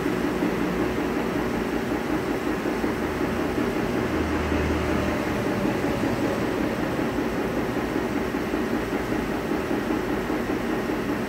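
Steady drone of a running machine motor, with a fast, even flutter low in pitch and no change in level throughout.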